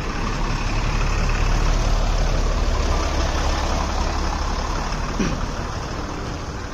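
Bus engine running with a steady deep rumble that swells over the first couple of seconds and then slowly fades.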